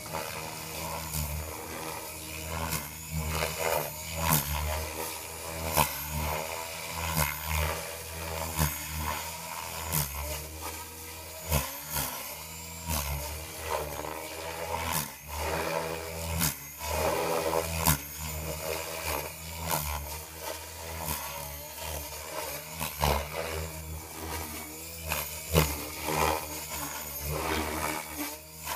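Radio-controlled 3D helicopter flying aerobatics: the drive and rotor pitch rises and falls as the rotor is loaded and unloaded, with a whooshing main rotor and frequent sharp cracks over a constant low hum.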